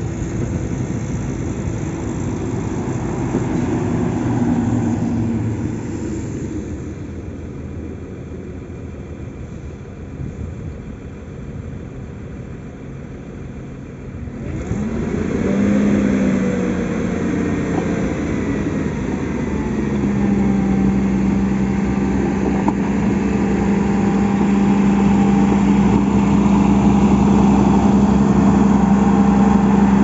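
Diesel engine of a SANY motor grader running while it grades the gravel road base. About halfway through its pitch rises, then it settles into a steady drone that grows louder as it comes close.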